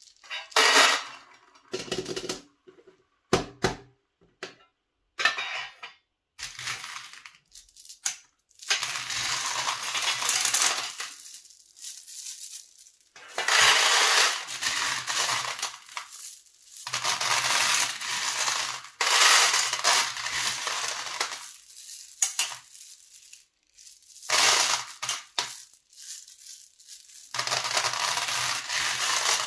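Handfuls of M&M's candies pouring and clattering into metal tins, in a series of pours lasting two to three seconds each with short silent gaps between. A few separate clicks of single candies come in the first seconds.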